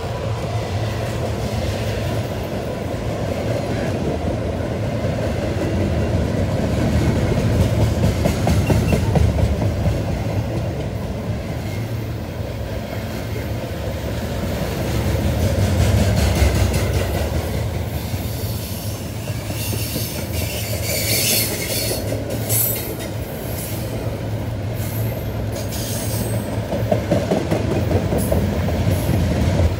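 Double-stack intermodal freight train's cars rolling past with a steady rumble and clatter of steel wheels on rail. Short high wheel squeals and clanks come about two-thirds of the way through.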